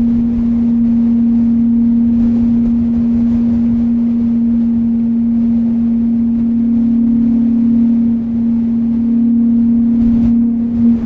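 Steady wind ambience, a constant rushing noise, with a single sustained low humming tone held over it.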